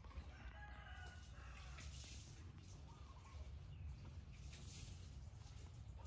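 A rooster crowing once, faint, starting about half a second in and held for about a second and a half, with a couple of short faint chirps later.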